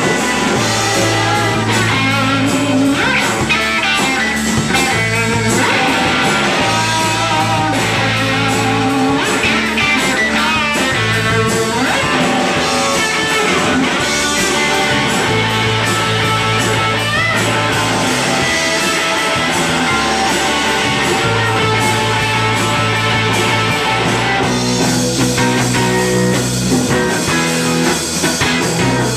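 Live rock band playing loud and steady: electric guitar, bass guitar and drum kit with crashing cymbals, with the lead vocals buried under the instruments.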